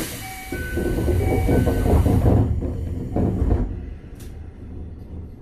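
A sudden loud hiss of compressed air on a Toei 5300 series train car standing at a station, fading out after about three and a half seconds. A low rumble runs under it, and a short electronic chime of a few repeated notes sounds over the hiss in its first two seconds.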